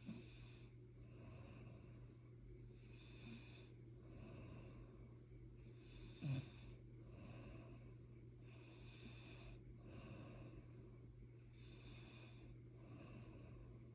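Soft snoring during sleep: slow, even, airy breaths repeating every second or two, with one short louder snort about six seconds in, over a steady low hum.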